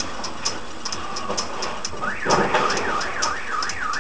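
Car alarm going off about two seconds in, a wailing tone sweeping up and down about twice a second, set off as a horse-drawn cart runs into a parked car. A fast, even ticking runs underneath.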